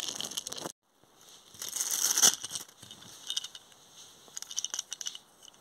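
Clear plastic wrapping crinkling in hand as a small toy train is unwrapped. It comes in bursts, loudest around two seconds in, then dies down to a few faint rustles and clicks.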